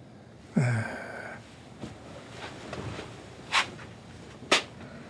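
An old man's short grunting exhale, falling in pitch, then slow footsteps about a second apart.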